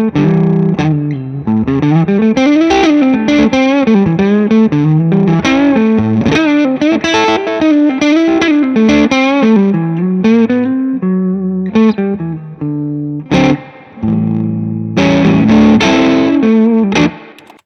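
Gibson Les Paul electric guitar played through a lightly overdriven amp: a single-note lead line with string bends, then held chords near the end that cut off.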